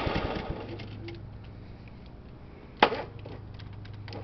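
John Deere 14SE mower engine dying out, its firing pulses slowing and fading over the first half second. Then a faint steady hum, broken by one sharp click about three seconds in.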